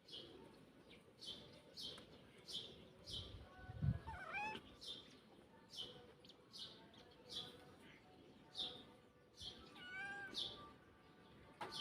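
Animal calls: a short, high chirp that drops in pitch, repeated about every two-thirds of a second. Two longer, wavering calls come about 4 and 10 seconds in, with a soft low thump near the first.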